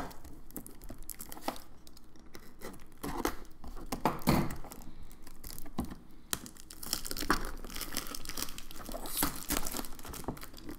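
Packing tape on a cardboard box being slit with a small knife and peeled away: irregular scraping, tearing and crinkling with scattered sharp clicks.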